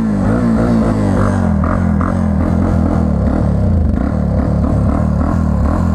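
1999 Yamaha TTR 250's single-cylinder four-stroke engine running just after starting, held on the throttle with its pitch wavering in the first second. It dies as soon as the throttle is let off, which the owner puts down to the tuning or the throttle return.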